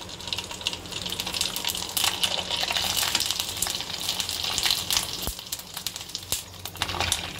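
Sabudana (sago) papad deep-frying in well-heated mustard oil in an aluminium kadhai: a steady crackling sizzle as the papad puffs up, with a couple of sharper clicks in the second half.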